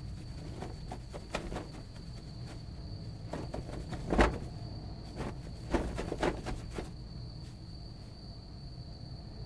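Night ambience of a steady, high cricket drone, with a few short soft knocks and rustles over it, the loudest about four seconds in.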